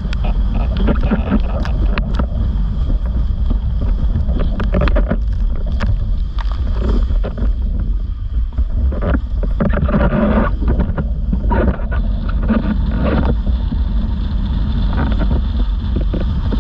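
Windsurf board planing at speed: water rushing and hissing off the hull, with irregular slaps as the board hits chop, under heavy wind rumble on the microphone.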